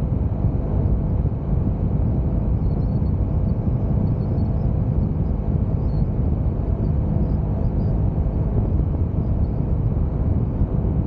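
Honda CBR motorcycle ridden at a steady speed: an even engine note mixed with road and wind noise, with no revving or gear changes.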